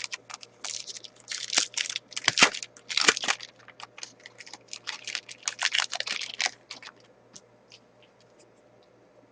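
A 2005-06 SP Authentic hockey card pack's wrapper being torn open and crinkled as the cards are pulled out, a dense run of crackling rustles that stops about seven seconds in.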